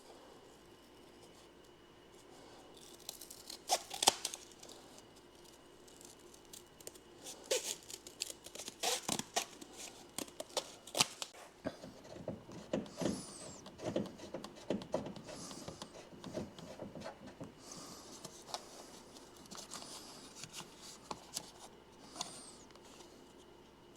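Scissors cutting cardboard to make a template: irregular snips and tearing crackles, thickest in the middle stretch, with one sharp snip about four seconds in.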